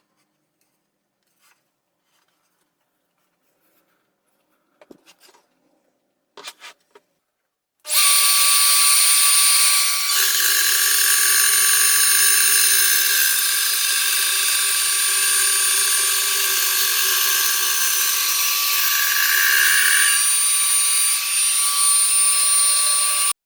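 Electric router in a flattening and milling jig, switched on after a few faint clicks and running with a loud, steady high whine. It stops abruptly at the very end.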